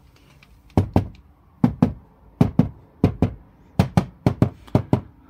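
Knuckles knocking on the plastic interior door panel of a Dacia Spring, mostly in quick pairs about every 0.7 s. The knocking tests how the door sounds now that it has been sound-deadened with a bitumen damping mat and closed-cell foam.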